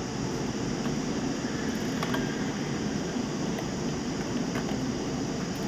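Steady background hum and hiss with a few faint, light clicks scattered through it.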